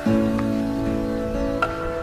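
Background music: a plucked-string instrumental of held chords, changing chord near the start and again near the end.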